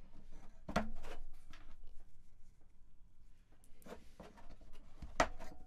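Small plastic-and-metal handling clicks as rotary encoders are pushed firmly into a Modal Craftsynth's circuit board, with sharp clicks about a second in and again near the end as parts click into place.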